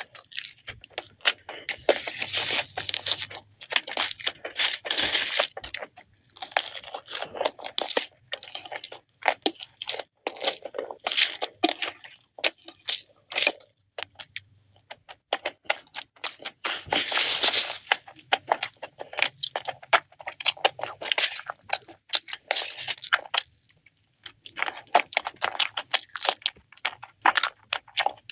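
Close-miked eating: crunching, chewing and tearing of crunchy food, a dense, irregular run of crackles and clicks in uneven clusters with short pauses.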